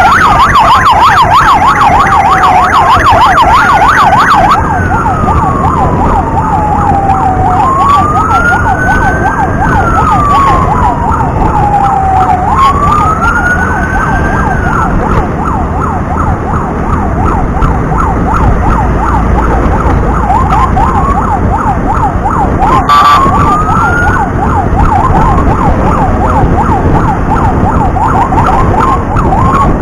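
Two emergency sirens sound together: one in a fast, continuous yelp, the other sweeping slowly up and down in long wails for the first half, then giving short rising whoops. Steady road and wind noise runs underneath.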